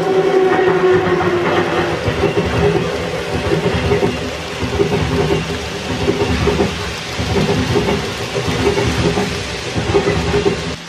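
N gauge model freight trains running along the layout's track close by. A small electric locomotive motor hums steadily under a dense rattle of wheels clicking over the rail joints and points.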